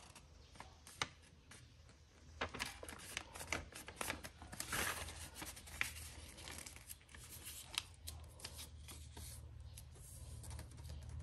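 Sheet of grid-ruled notebook paper rustling and crackling softly as hands fold it in half and press the crease flat, in scattered short bursts that grow busier after the first couple of seconds.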